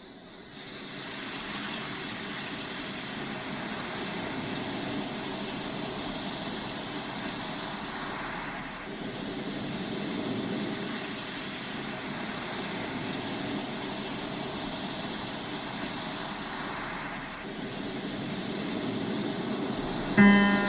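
Steady rushing noise with no clear pitch, shifting slightly about every eight to nine seconds; a plucked guitar note comes in near the end.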